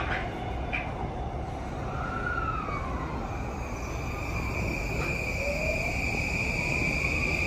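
Yamanote Line E235-series electric train starting to pull out from the platform: its inverter and traction motors whine in gliding tones, and a steady high whine joins about three seconds in, over the rumble of the train.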